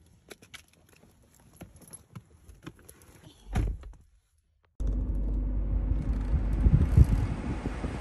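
Getting into a car: small clicks and rustles, then a car door shutting with a thump about three and a half seconds in. After a short gap, a steady rushing noise inside the car cabin.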